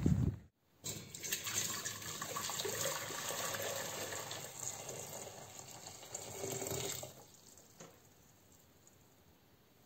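Water running from a tap, starting about a second in and stopping about seven seconds in.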